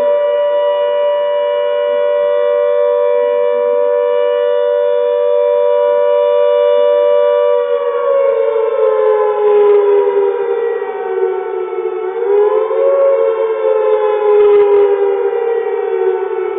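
Town flood warning siren, an air-raid-type siren, sounding a steady two-note chord during a test. About halfway through, its pitch sinks, swings briefly back up, and then sinks again.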